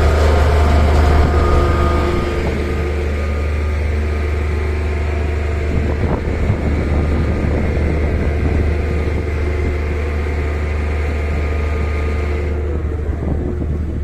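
Steady drone of heavy construction machinery running, a strong low hum with a few held higher tones. The higher hiss falls away about twelve seconds in.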